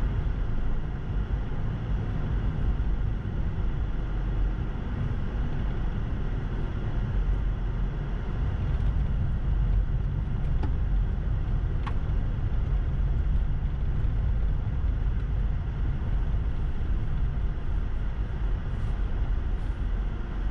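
Car driving on snow-packed roads, heard from inside the cabin: a steady low rumble of tyres and engine.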